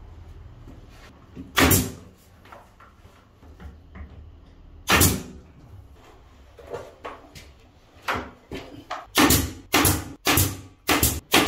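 Pneumatic nail gun firing nails through a wooden ceiling trim strip: two single sharp shots a few seconds apart, then a quick run of shots about two a second near the end.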